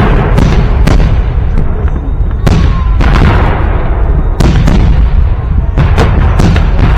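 Festive fireworks salute: repeated loud bangs of shells bursting, irregular and sometimes in quick pairs, over a continuous rumble of booms, with a faint falling whistle now and then.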